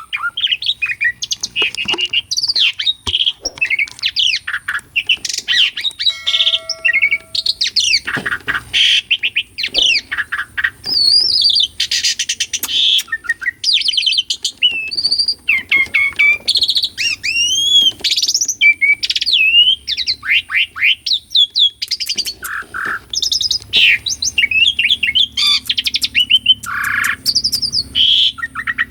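Asian pied starling (jalak suren) in full song: a fast, varied, nearly unbroken run of whistles, chirps, rising and falling glides and harsh chattering notes, with a short steady whistled note about six seconds in.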